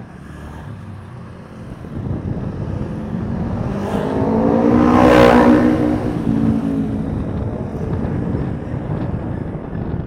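A motor vehicle passes close by on the road, its engine and tyre noise swelling to a peak about five seconds in and then fading, over wind noise on the microphone.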